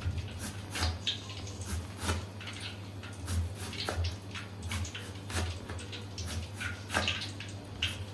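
Kitchen knife finely chopping onion on a cutting board, sharp strokes about two a second, some with a dull thump from the board.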